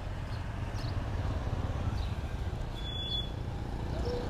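Outdoor street-market background: a steady low rumble of passing traffic with faint distant voices, and one brief high beep about three seconds in.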